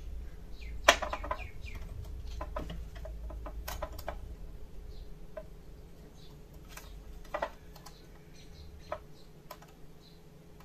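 Scattered light clicks and taps of a small glass jar and wooden craft sticks being handled and set down on a cutting mat, the sharpest knock about a second in.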